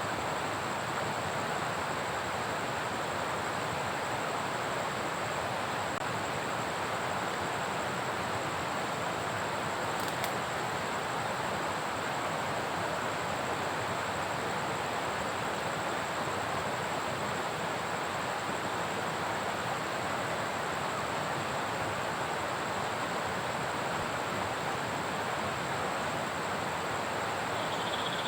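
Steady rushing water from heavy rain and a flooded stream: an even, unbroken hiss at a constant level, with a thin, high, steady whine above it and a single faint click about ten seconds in.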